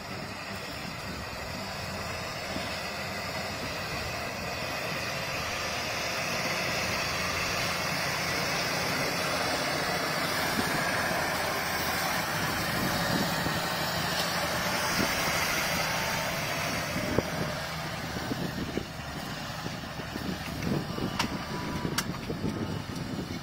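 Massey Ferguson 8S.265 tractor's six-cylinder diesel engine working steadily under load while pulling a reversible plow, growing louder through the middle as it passes close, then dropping back. Two sharp clicks near the end.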